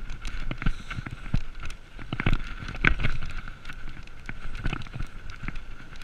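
BMX bike rattling over a rough dirt and gravel track: the tyres crunch and the bike clatters with many uneven sharp knocks, over a steady high whine.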